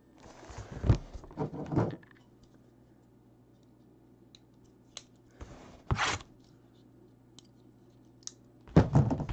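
Plastic shrink wrap and cardboard of a sealed trading-card hobby box being torn and opened, in a few short rustling, crinkling bursts with light clicks between them.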